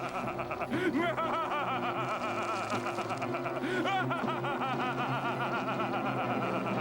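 A man's villainous cackling laugh, a quick run of short pitched "ha" bursts, over dramatic background music.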